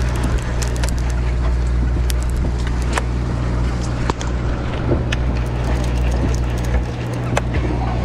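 A boat engine running steadily, a low constant hum under a broad noise haze, with scattered sharp clicks and knocks.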